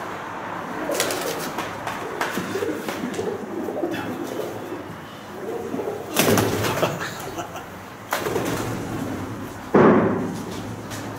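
Pigeons cooing, with two sudden loud knocks about six and ten seconds in, the second the loudest.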